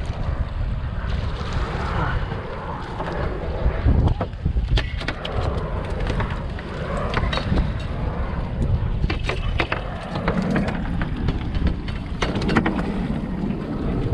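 Strong wind buffeting the microphone on a small boat in rough water, with scattered knocks and clatters on the deck.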